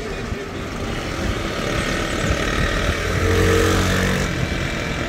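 Road and traffic noise heard from inside a moving car. A small motorcycle's engine passes close alongside and is loudest a little past the middle.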